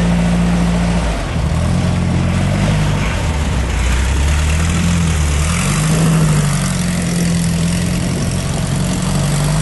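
Car engine running steadily, its pitch shifting up and down slightly a few times.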